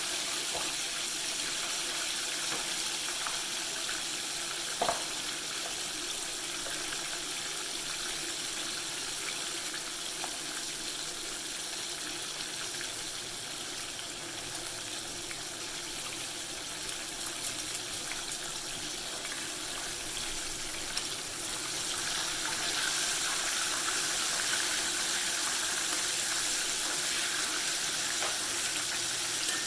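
Chicken pieces deep-frying in a pot of hot canola oil, a steady sizzling hiss. A single knock about five seconds in, and the sizzle grows louder from about twenty-two seconds.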